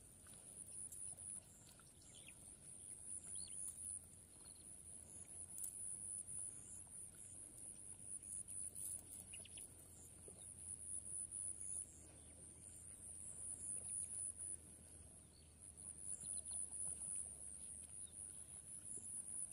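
High-pitched insect drone pulsing rapidly, breaking off briefly twice, with a few faint bird chirps.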